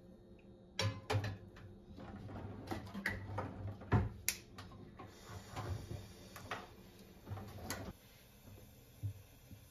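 Stainless steel frying pan set down on and shifted about the metal grate of a gas stove: a string of irregular metallic clicks and knocks, the loudest about four seconds in.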